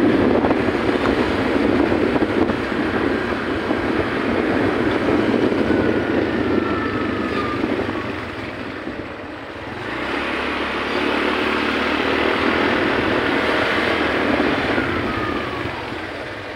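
Motor scooter running while under way, with steady engine and road noise that eases off for a moment about nine seconds in.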